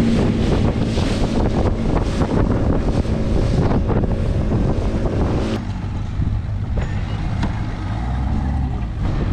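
Aluminium fishing boat running fast through chop: a steady engine drone with wind buffeting the microphone and water spray. About five and a half seconds in the sound changes abruptly to a quieter, lower engine hum as the boat moves slowly.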